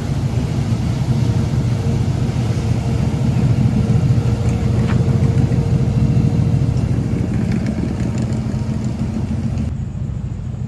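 Motorboat engine running steadily with a low rumble as the boat passes through the inlet, loudest about four seconds in and then easing off.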